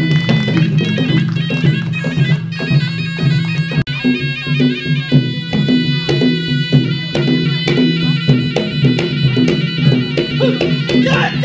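Traditional Malay silat music: a serunai reed pipe playing a nasal melody over a steady drone, with frequent drum strokes beneath. It drops out for an instant about four seconds in and carries on.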